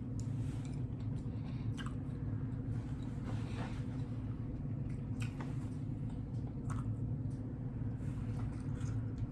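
Close-miked chewing of barbecue pork, with wet mouth clicks and smacks every second or so over a steady low hum.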